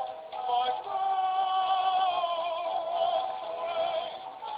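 Animated plush gondolier monkey toy singing a song over a music backing, with long held, wavering notes.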